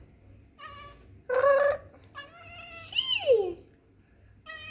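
A cat meowing three times: two short meows, then a longer call that rises and falls in pitch.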